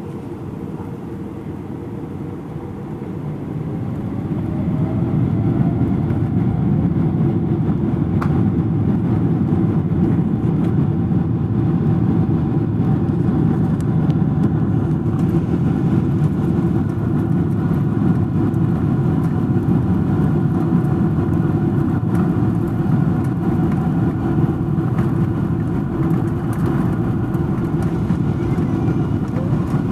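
Passenger jet's engines spooling up to takeoff thrust, heard inside the cabin: a whine rising in pitch over the first few seconds as the sound swells. Then a loud, steady rumble as the plane accelerates down the runway.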